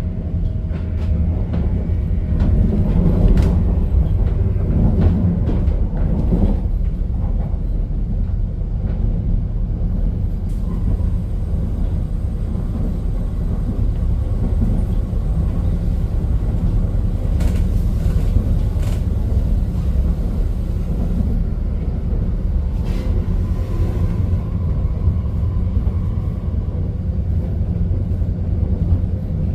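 Steady rumble of a moving passenger train heard from inside the carriage, with a few faint clicks over it.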